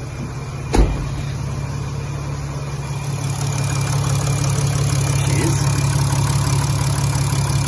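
Mercedes-Benz ML350 BlueTec's 3.0-litre V6 diesel catching with a thump about a second in, then idling steadily and getting a little louder after about three seconds. It is running on a freshly replaced fuel filter after priming, where some early roughness is normal.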